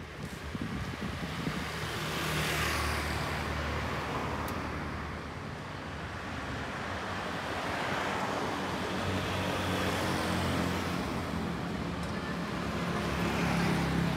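Street traffic passing close by: a steady low engine hum, with about three vehicles going past one after another, each rising and then fading.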